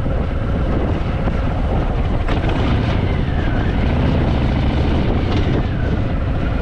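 Harley-Davidson Fat Boy's V-twin engine running at low speed in slow traffic, a steady low rumble.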